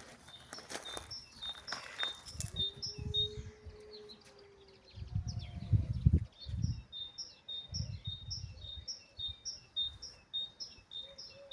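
A small songbird singing a fast string of short, high, repeated chirps, about three a second. Bursts of low rumble come and go beneath the song, the loudest about six seconds in.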